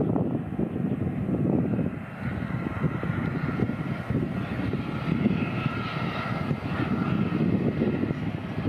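Twin-engine jet airliner's engines at takeoff thrust during the takeoff roll: a steady deep rumble, with a faint high whine from the engines coming in about three seconds in.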